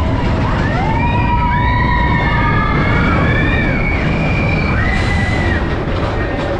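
Expedition Everest roller coaster train rumbling along its track, with several riders screaming over it in overlapping high-pitched cries that rise and fall through the first four seconds and again briefly about five seconds in.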